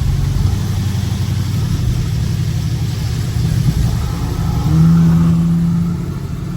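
Scat Pack's 392 HEMI V8 droning steadily on the move, with tyre hiss from the wet road. About four seconds in an engine note climbs into a brief, louder rev, then eases off.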